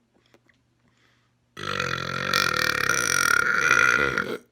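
A man's long, loud burp, one continuous pitched belch lasting nearly three seconds, starting about a second and a half in and cutting off sharply near the end.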